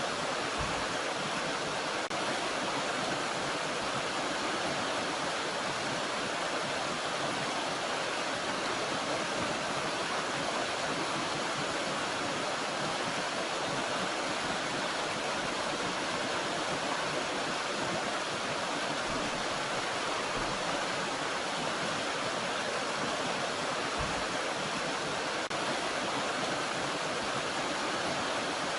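Steady, even rushing of water from a small mountain stream and waterfall.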